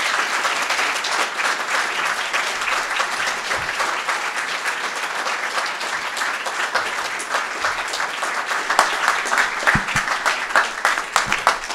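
Audience applauding steadily. Over the last few seconds the clapping thins and single louder claps stand out.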